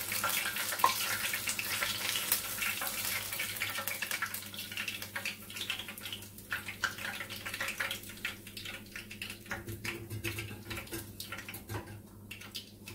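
Apple doughnut rings deep-frying in hot oil: a dense sizzling crackle that thins out and quietens in the second half as the doughnuts are lifted out of the oil with a wire strainer.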